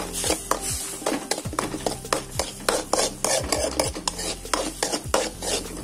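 A steel spoon stirring and scraping scrambled egg around a hot metal pan, with repeated irregular clicks and scrapes of metal on metal, over a light sizzle of the egg frying in oil as it sets.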